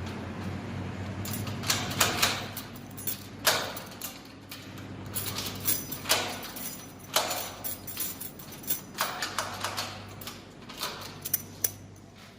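Irregular sharp knocks and clicks, a few louder than the rest, over a steady low hum.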